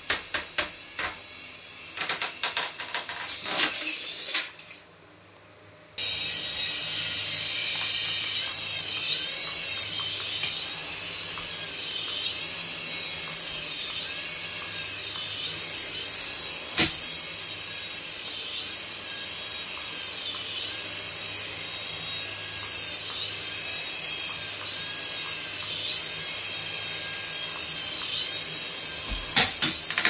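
Small battery-powered toys running: tiny electric motors whirring and plastic gear mechanisms clicking. The sound breaks off briefly about five seconds in, then goes on as a steady high hiss with a high warbling tone that repeats about every second and a half, and a single sharp click near the middle.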